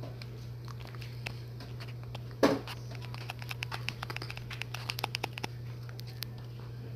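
Light taps and clicks of fingers on a phone touchscreen while drawing, coming in a quick irregular string in the middle of the stretch, with one louder bump about two and a half seconds in, over a steady low hum.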